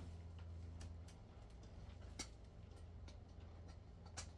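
A few faint, sharp clicks over a steady low hum.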